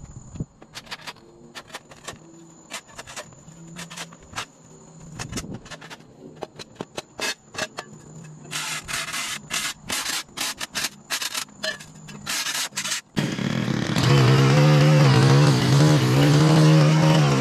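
Steel shovel blade scraping and chopping sod off a concrete sidewalk: a string of irregular scrapes that come louder and quicker after about eight seconds, over a faint steady insect drone. About four seconds before the end, a handheld gas edger's small engine suddenly starts running loudly, its pitch wavering.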